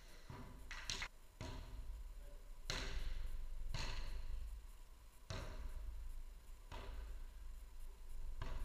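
Footvolley ball kicked and headed back and forth in a rally: a series of sharp knocks a second or more apart, echoing in a large hall.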